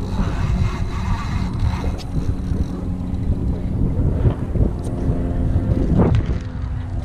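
Wind buffeting the action camera's microphone on an open-ocean kayak: a steady low rumble, with a few faint steady low tones from about two seconds in and scattered light knocks.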